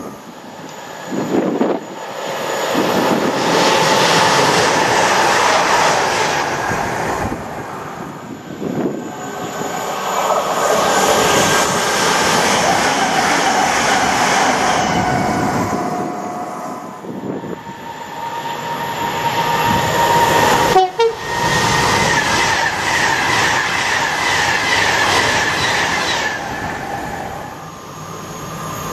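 Electric passenger trains passing through a station at speed, one after another: the rush of wheels on rail and traction hum swelling and fading three times, one pass a Southern Class 377 electric multiple unit. A sharp click about two-thirds of the way through.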